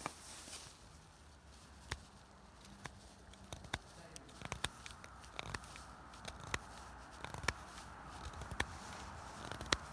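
Victorinox Huntsman Swiss army knife cutting into wood: irregular faint clicks and crackles, with a soft scraping hiss building from about four seconds in.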